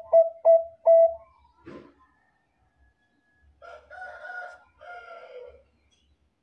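Zebra dove of the Thai-bred perkutut bangkok strain cooing: the last few short, quick notes of its phrase, about two to three a second, ending about a second in. A few seconds later comes a fainter two-part call from another bird.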